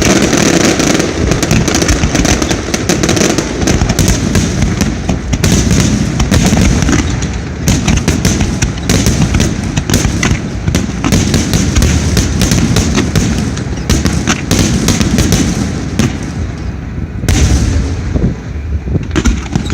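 Fireworks display finale: a dense barrage of shells bursting in rapid, overlapping bangs with crackling, thinning slightly in the last few seconds apart from one loud burst.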